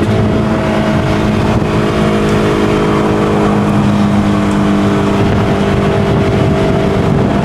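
Maserati Quattroporte engine running at a steady, unchanging pitch, the car holding speed in a lower gear.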